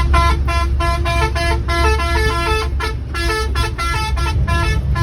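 Multi-tone musical vehicle horn playing a quick tune of short notes that hop between a few pitches, about three to four notes a second, over the steady low rumble of a running engine.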